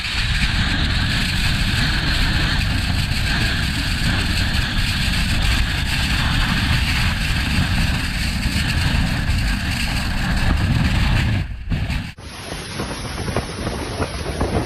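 Storm-force wind blowing hard across the microphone, a loud steady rush with heavy low buffeting and a hiss on top. About twelve seconds in it cuts off suddenly to a quieter, different wind sound.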